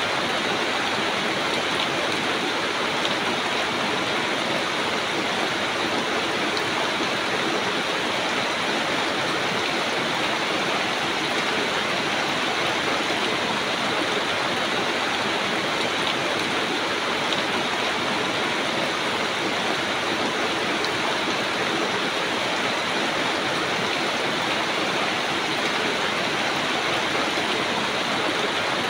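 Steady rain falling on banana plants and their broad leaves: an even, unbroken hiss.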